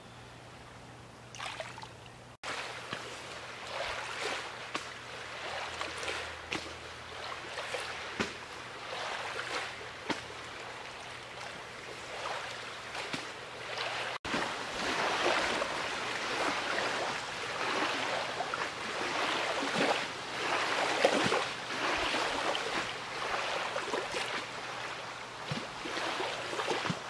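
Small waves lapping and splashing irregularly against a rocky lakeshore, louder in the second half.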